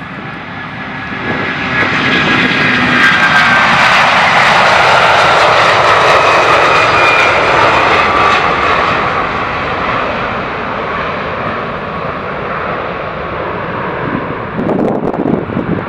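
Airbus A330 airliner's twin turbofan engines at takeoff thrust as it rolls, lifts off and climbs away. It is a loud jet noise with a whine that swells over the first two seconds, peaks, then slowly fades. Near the end, wind buffets the microphone.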